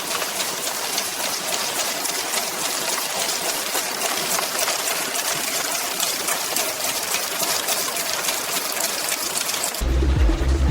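Raisin processing-line machinery running steadily: an even hiss thick with fast, dense clicking and rattling. It stops near the end, where music comes in.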